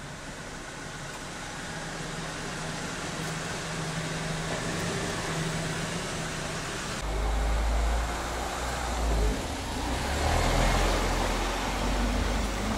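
Street traffic noise: vehicles running on the road, with a heavy low rumble that comes in suddenly about halfway through.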